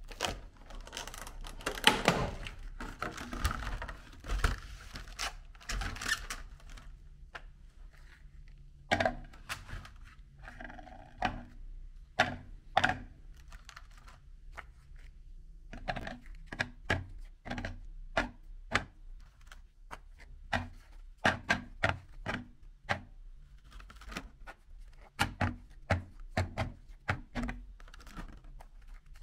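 Thin clear plastic clamshell container being handled and crackling for the first several seconds. Then a long run of sharp clicks and taps as hard dry cookies are lifted out of the plastic tray and set down on a plate.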